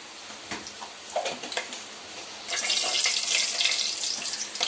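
Whole spices sizzling in hot ghee in a metal pot while a spoon stirs them: a few light clicks, then a loud, steady hiss of sizzling from about halfway in that stops just before the end.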